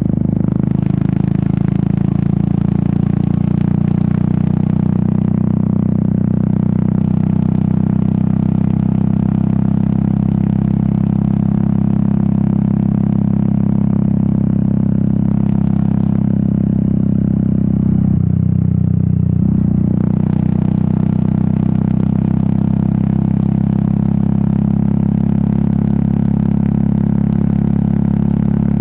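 Royal Enfield Meteor 350's single-cylinder engine and exhaust running steadily under way on the motorcycle. The note changes briefly about eighteen seconds in.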